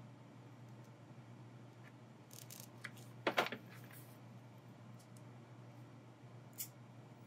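Glass cutter scoring a small piece of stained glass with a faint high hiss, then a short, loud crackling clatter a little past three seconds in, and a single sharp click near the end.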